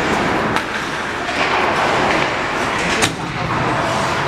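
Ice hockey game sounds at a rink: a steady wash of skating and arena noise, broken by two sharp clacks, about half a second in and about three seconds in.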